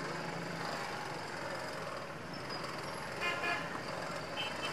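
Slow, congested street traffic with motorcycle and car engines running at low speed; a vehicle horn honks briefly about three seconds in, and a shorter, higher beep follows near the end.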